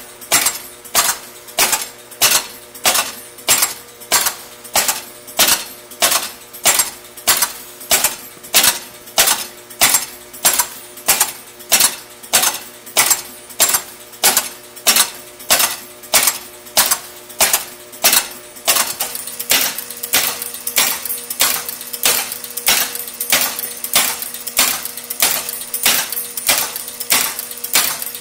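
Electromechanical horse-race pinball machine's relays and stepper units clacking repeatedly over a steady electrical hum, about one and a half strokes a second, as it steps its horses forward one at a time. From about two-thirds through, the clacks come faster with extra clicks between them. The game is acting as if a ball had fallen into a hole when none has, which turned out to be a short from a contact soldered to the wrong terminal.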